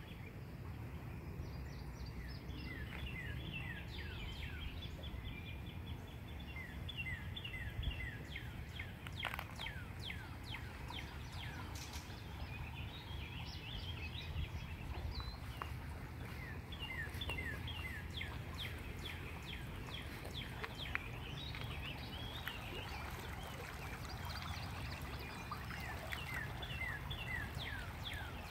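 Songbirds singing, short falling chirps repeated in quick runs, over a steady low rumble of outdoor background noise.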